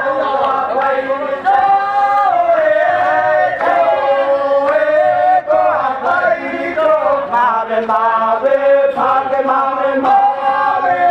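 A group of voices singing a Bajawa traditional chant together, holding long notes and sliding from one pitch to the next.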